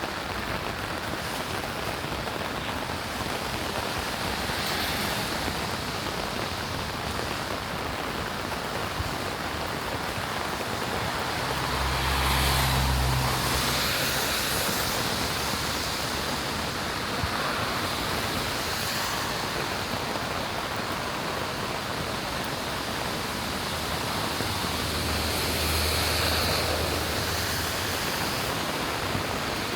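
Steady rain falling. Twice a louder low rumble swells and fades, about twelve seconds in and again near the end.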